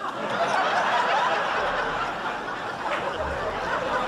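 A live comedy audience laughing at a joke's punchline: steady, sustained crowd laughter.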